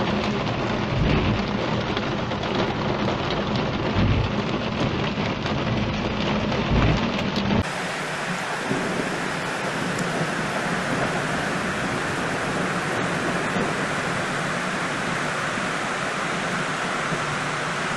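Heavy rain hissing and pattering on a car's windshield, with a few deep rumbles in the first half. From about eight seconds in, the sound changes to an even, steady rain hiss.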